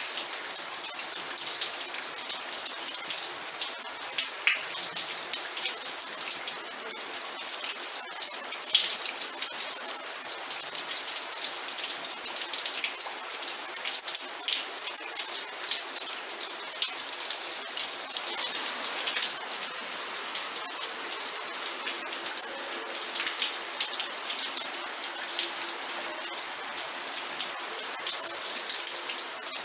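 Steady rain falling, with a dense patter of individual drops hitting a surface over an even hiss.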